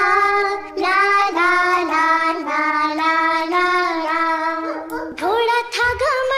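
A child singing the wordless 'la la la' ending of a Hindi children's song in long held notes, gliding up into a higher note about five seconds in.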